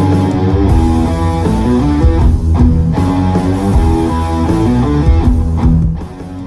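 Background music: loud guitar-led instrumental with a strong bass line, easing off near the end.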